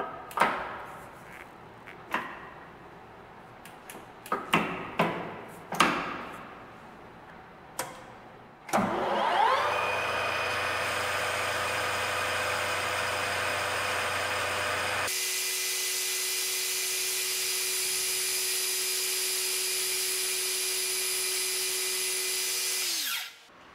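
Several sharp knocks and clicks, then a metal lathe's spindle starting up with a rising whine and running steadily while a carbide insert turns a metal bar between centres. About halfway through, the running sound jumps higher in pitch as the footage plays at four times speed; near the end it falls in pitch and stops abruptly.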